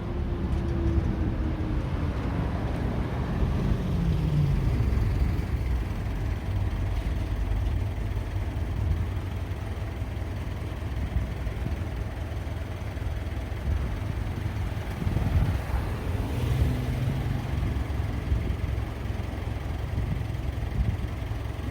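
Road traffic going by: a steady rumble of cars and trucks, with one vehicle's engine note falling in pitch as it passes in the first few seconds and another vehicle passing about three quarters of the way through.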